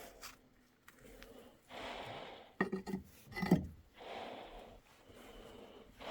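Heavy breathing in a small underground space, soft breaths about every two seconds, after a ladder climb. A few sharp clunks and scrapes, from boots or gear on the rock or timber, come about two and a half to three and a half seconds in and are the loudest sound.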